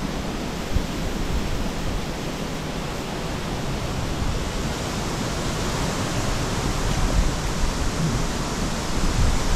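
Steady rushing outdoor noise with a low, uneven rumble underneath.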